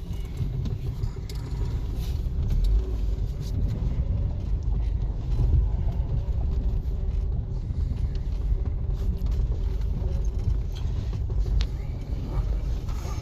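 Carburetted engine of a 1993 Nissan car running steadily: an even, low rumble with a faint steady hum above it.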